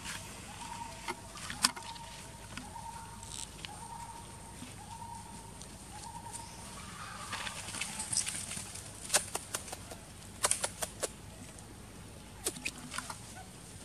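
Forest ambience: a bird repeats a short whistled note over and over through the first half, over a faint steady high insect drone. Sharp crackles and snaps of dry leaf litter and twigs come once about a second and a half in and in clusters in the second half, as macaques move over the forest floor.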